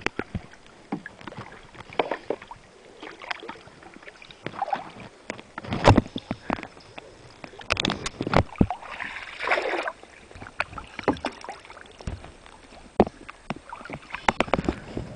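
Paddles dipping and splashing in river water as a small paddled boat moves along, with irregular sharp knocks and splashes.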